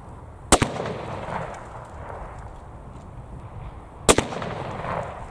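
Two rifle shots about three and a half seconds apart, from a Savage Impulse Elite Precision straight-pull rifle firing .308 Winchester. Each is a sharp crack followed by a short decaying tail.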